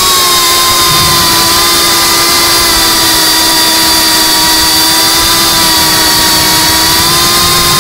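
Geprc Cinelog 35 FPV drone's brushless motors and propellers whining steadily in forward flight, heard close up from the onboard camera, the pitch sagging a little and rising again near the end with the throttle.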